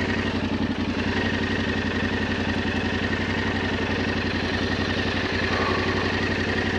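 Yamaha Ténéré 700's parallel-twin engine idling steadily at a standstill, with an even, unchanging beat and no revving.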